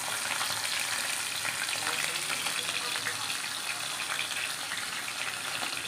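Food frying in hot oil: a steady sizzle with fine, continuous crackling.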